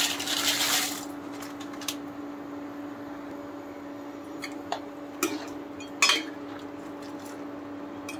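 Dry fusilli pasta poured from its packet into a pan of boiling water, a brief rattling rush in the first second. Then a perforated metal spoon stirs the pasta, knocking and scraping against the pan a few times, over a steady low hum.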